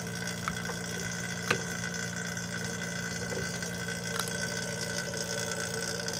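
Small electric AC vacuum pump running steadily, pulling the van's air-conditioning system down into a vacuum. A single sharp click about a second and a half in.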